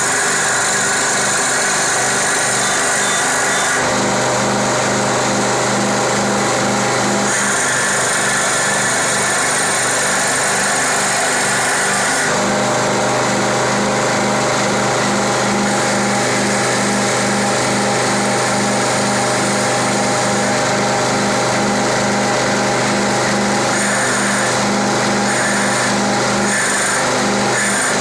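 CNC wood lathe running: a steady whine from its spindle and axis motors, with a regular pulsing underneath. The pitch shifts every few seconds as the machine changes moves.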